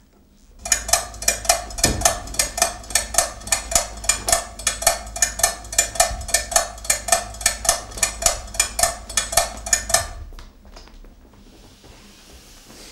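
Rapid, even clock-like ticking, about three or four ticks a second, which stops about ten seconds in: a ticking sound effect for the giant stage clock.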